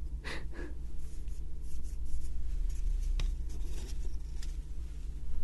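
Thin plywood puzzle pieces handled and scraped together, with light rustles and small ticks and one sharp click a little after three seconds in.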